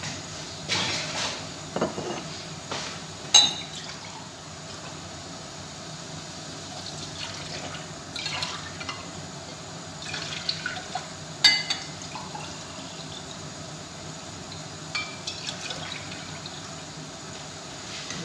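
Water poured from a glass jug into a pan on the stove, with scattered sharp clinks and knocks of glass and cookware.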